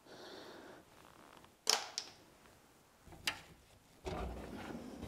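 A few sharp clicks, then about four seconds in a steel tool chest drawer rolling open on its slides with a low rumble.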